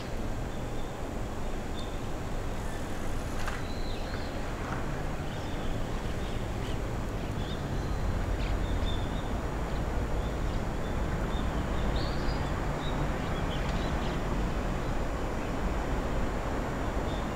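Outdoor ambience: a steady low rumble that grows a little stronger about halfway through, with scattered short chirps of small birds.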